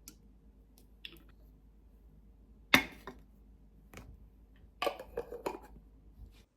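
Several sharp clicks and knocks in a small room: a single loud one about three seconds in, then a quick run of them about five seconds in.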